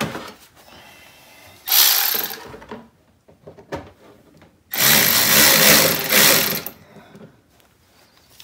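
Cordless power driver running in two bursts as it drives screws through a mud flap into the wheel well: a short run about two seconds in and a longer, two-second run near five seconds.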